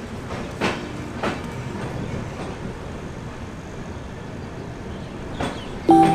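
Passenger train rolling slowly out of a station, heard from on board: a steady rumble with a few sharp clacks of the wheels over rail joints. Music with pitched notes starts near the end.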